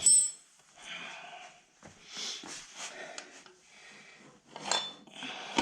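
Loose steel motorcycle parts clinking and scraping, with a sharp ringing clink at the start, as the rear axle and wheel spacers are worked out of the wheel.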